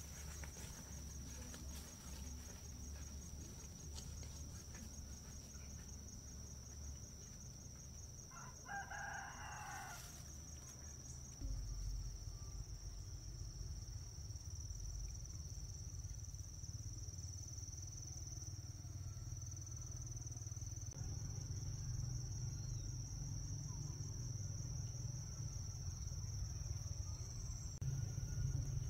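A rooster crows once, about eight seconds in, over a steady high-pitched drone of insects. A low background rumble grows louder partway through.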